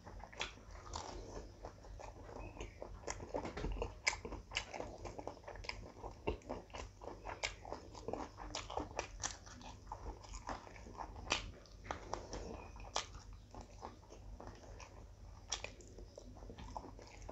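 Close-miked eating of rice and curry by hand: chewing with frequent wet lip smacks and sharp mouth clicks at an irregular pace.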